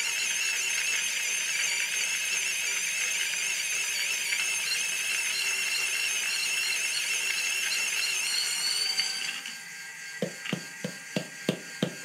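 Varia VS3 Gen 2 electric coffee grinder, with its 100 W DC motor and stainless steel gearbox, grinding a 20 g espresso dose of beans: a steady high-pitched whine. About nine seconds in the grinding sound drops away as the last beans go through, leaving a fainter hum, and a quick run of knocks follows, about four a second, as the grinder's top is tapped.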